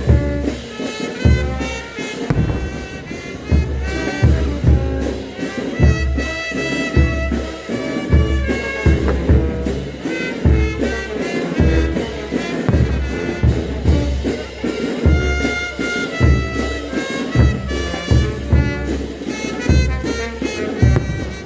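Band music: wind instruments playing a melody over a steady low drum beat.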